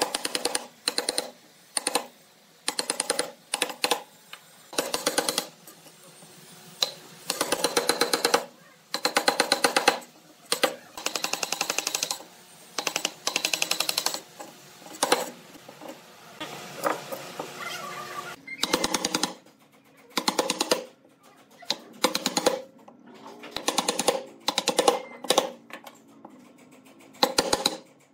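Wood chisel driven into a wooden block by fast repeated strikes while chopping out a mortise, in bursts of rapid tapping about half a second to two seconds long with short pauses between.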